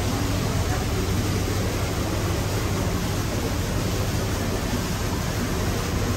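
Steady low hum under an even hiss of background noise, unchanging and with no distinct events.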